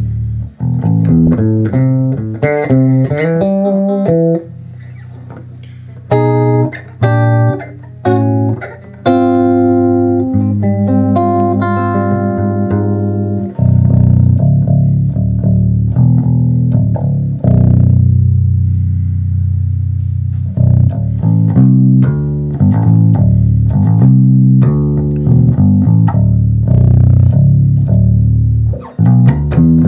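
Electric bass guitar played through a small Ashdown Superfly combo amp with a single 8-inch speaker: runs of plucked notes, a long held low note, then ringing higher chords near the middle before a busier riff of notes.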